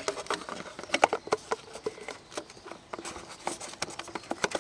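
Irregular small clicks, taps and rustles of hands fitting a new fuel filter element into the plastic fuel filter housing of a Cummins 5.9 diesel, with a few sharper knocks along the way.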